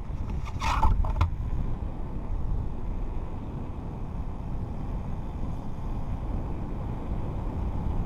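Wind buffeting a helmet-mounted camera's microphone as a mountain bike coasts fast down an asphalt road, with a steady low rumble of tyres on the tarmac. A brief clatter about a second in.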